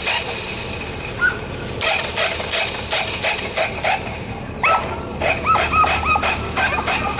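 Lure-coursing line and pulleys running with a rapid, even clatter of about three to four ticks a second, as the lure machine drags the plastic-bag lure across the field. A dog yips in a quick series of short high cries about two thirds of the way in.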